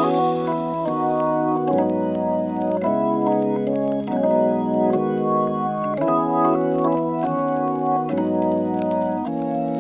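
Background music: sustained organ-like keyboard chords changing about once a second.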